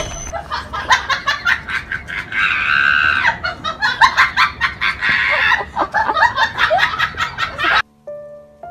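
A person laughing hard in quick repeated bursts, with a high squeal about two and a half seconds in. It cuts off abruptly near the end, where soft piano notes begin.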